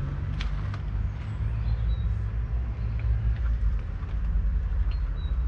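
A 2008 Valtra N91's 4.4-litre four-cylinder diesel engine idling steadily, its low hum holding an even speed.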